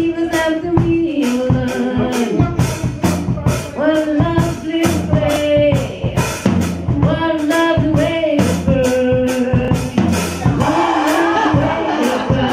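A woman singing into a microphone over music with a steady drum beat, holding and sliding between long notes.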